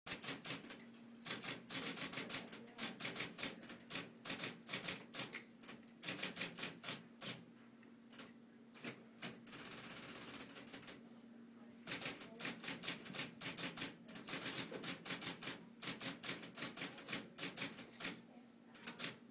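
Typewriter being typed on: quick runs of key strikes in bursts with short pauses between, and a brief steady rasping noise about halfway through.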